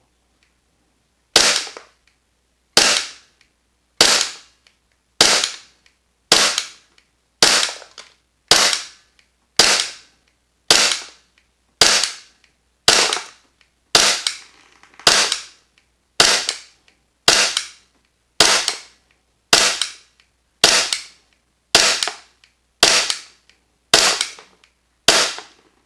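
VFC/Umarex Glock 45 gas blowback airsoft pistol fitted with an energy-saving cylinder bulb and a strong spring, firing a slow, steady string of about twenty-two shots, roughly one a second. Each shot is a sharp crack of gas and the slide cycling, and the shots come out very even in gas output.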